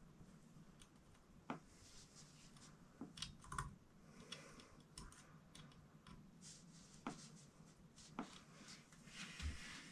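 Near silence broken by a few faint, scattered clicks and light taps of hands and a small tool working on a 3D printer's print bed.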